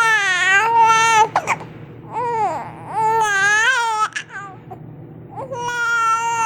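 Infant crying in several long, high wails with short pauses between them, upset by a bout of hiccups.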